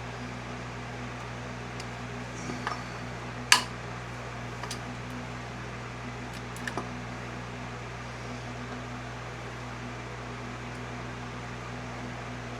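Steady fan-like hum, with a few light clicks and one sharp knock about three and a half seconds in, from tools and parts being worked loose in an engine bay.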